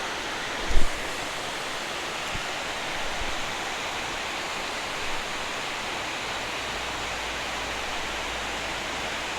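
Steady rushing of water pouring over a river spillway, with one short low thump about a second in.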